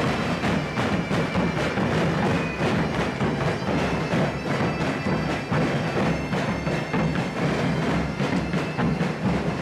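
Portuguese street band of bass drums (bombos) and snare drums beating a steady marching rhythm, with a bagpipe (gaita de foles) playing a sustained melody over the drums.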